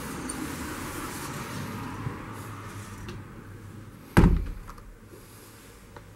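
A door shutting with a single heavy thud about four seconds in, after a steady hum of street noise that fades away over the first few seconds.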